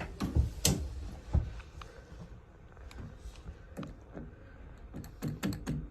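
Hands and tools working on the parts of an opened washing machine: a few sharp knocks and clicks in the first second and a half, then a quick run of clicks near the end.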